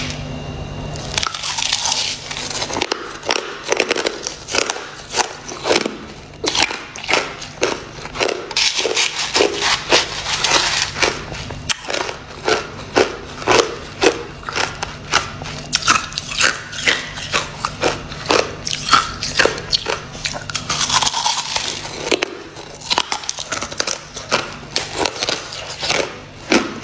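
Crushed clear ice being bitten and chewed, a quick irregular run of loud crunches, over a faint steady low hum.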